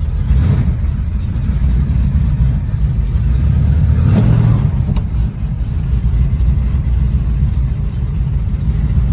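Classic car's engine running, heard from inside the cabin as the car is driven off a trailer, with the engine briefly louder about four seconds in.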